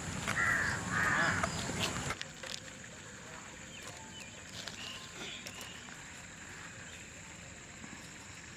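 A bird calls twice within the first two seconds, over a low rumbling noise that stops about two seconds in. After that there is a quiet outdoor background with a few faint, distant chirps.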